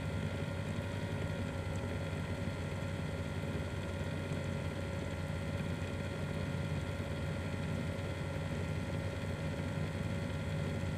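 A small electric motor running steadily: an even hum with a few constant whining tones.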